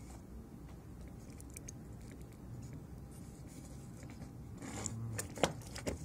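Xbox Series S power supply circuit board being handled and turned over on a wooden workbench: faint rubbing, then a cluster of scrapes and clicks near the end, one sharper knock among them.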